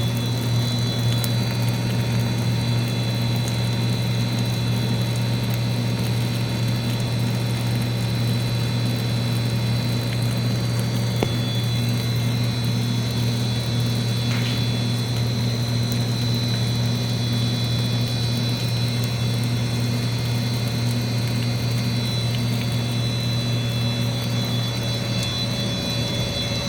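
Plastic recycling extruder with a 55 mm screw and a 20 HP electric motor, running steadily: a loud, even low hum with a faint high whine above it.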